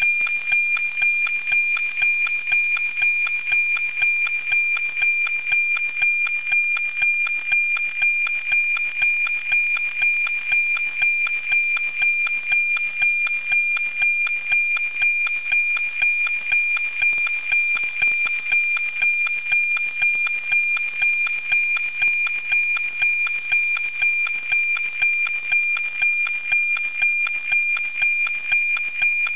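NOAA-19 weather satellite APT signal received through an RTL-SDR and played as audio: a steady high-pitched tone with a regular tick-tock about twice a second, over a light hiss. The ticking is the satellite's image scan lines, sent at two lines a second, so the signal is locked and decoding into a picture.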